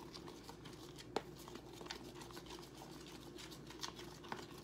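Spoon stirring a foamy mix of shaving cream, glue and paint in a plastic bowl: faint soft squishing and scraping, with a sharp click about a second in.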